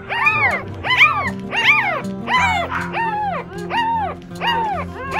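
West Highland white terrier yelping repeatedly, about seven high calls in a row, each rising then falling in pitch, over background music.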